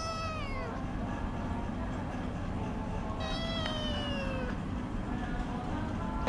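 A cat meowing: a short meow that falls in pitch at the start, then a longer, drawn-out meow about three seconds in that slowly falls, over a steady low hum.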